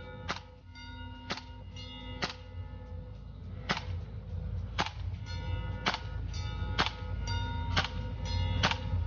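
Tokyo Marui AKM gas blowback airsoft rifle firing a string of single shots, sharp pops about one or two a second. A metallic ringing hangs on between the shots over a steady low rumble.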